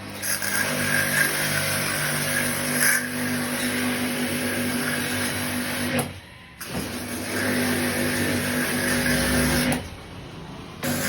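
A motor-driven machine running with a steady hum and a hiss. It cuts out briefly about six seconds in, starts again, and stops near the end.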